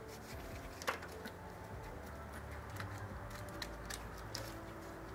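Faint clicks and taps of hands handling parts in a car's engine bay, one sharper click about a second in, over a low steady hum.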